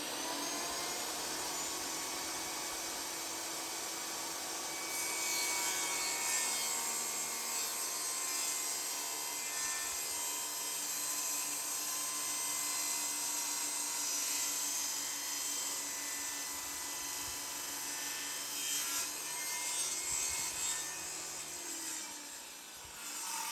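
Table saw starting up, then its blade ripping a strip of red oak to width for about fifteen seconds, the cut louder and hissier than the bare running; the motor is switched off and winds down near the end.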